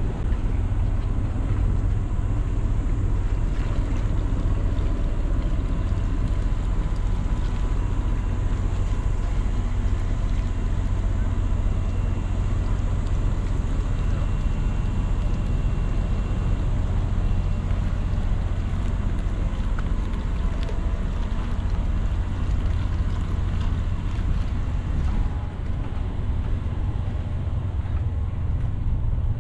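Wind on the microphone: a steady low rumble with a hiss over it, dipping briefly near the end.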